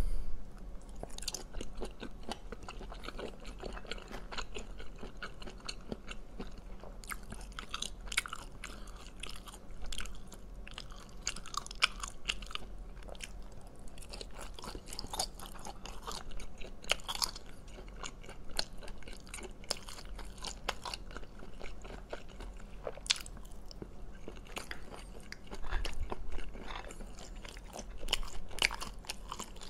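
Chewing of chewy braised cat's eye snail meat: steady wet mouth sounds broken by many short, sharp clicks, with a few louder bursts near the end.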